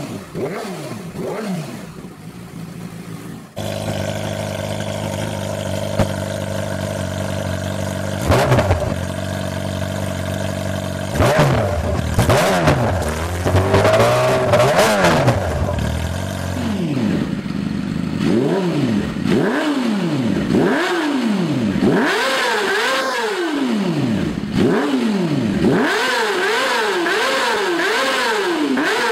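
Yamaha YZF-R6 inline-four engine revved through an aftermarket exhaust. A first clip ends about 3.5 seconds in; the next holds a steady rev with a few quick blips, then gives repeated throttle blips that rise and fall about once a second.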